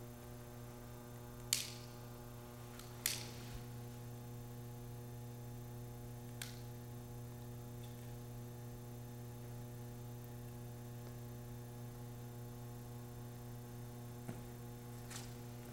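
Faint, steady electrical mains hum with several evenly spaced overtones. Two sharp clicks come about one and a half and three seconds in, and a fainter one near six seconds.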